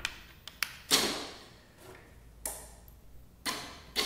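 Two linear actuators on a robotic bartender, switched through relays, starting and stopping in turn. There is a run of sharp clicks, each fading within half a second, about one a second, with the loudest about a second in.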